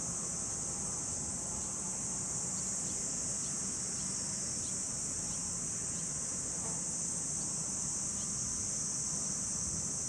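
A chorus of summer insects droning in a steady, unbroken high buzz. A few faint, short high chirps sit on top, with a low rumble of wind beneath.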